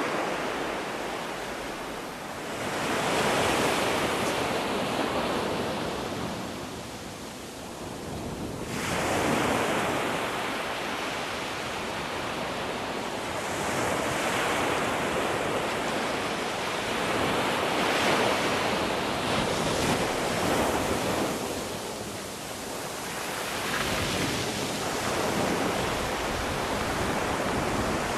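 North Sea surf breaking on a sandy beach, the wash of the waves swelling and falling every few seconds.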